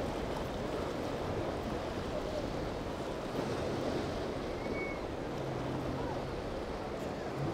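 Waves and surf washing steadily, with wind on the microphone and a low hum of boat engines running in the distance.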